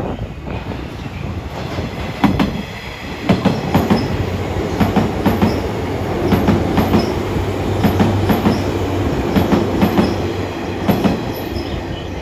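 JNR 185 series electric train passing through the station, its wheels clattering over the rail joints in a steady run of clicks, often in pairs. The clatter starts about two seconds in and fades near the end.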